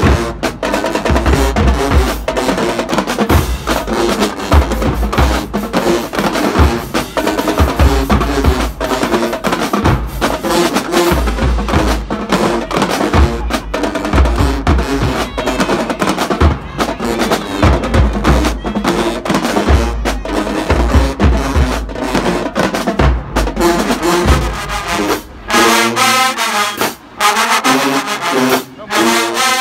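Marching band drumline playing, snare and bass drums driving a steady beat. Near the end the bass drums drop out and the brass section comes in.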